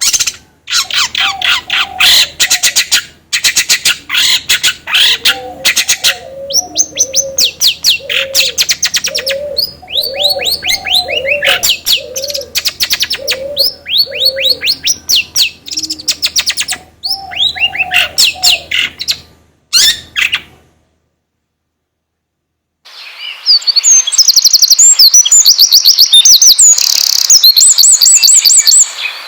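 Songbird chatter used as a lure recording to set caged birds singing: a dense run of rapid clicks, harsh chatter and high whistled notes, with a lower repeated call about once a second in the middle. About 20 s in it stops for two seconds of silence, then a different loud passage of fast, high trilling chatter starts.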